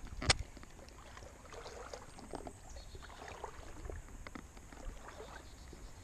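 Shallow creek water sloshing and lapping softly close by, with scattered small ticks and splashes; a single sharp click comes just after the start.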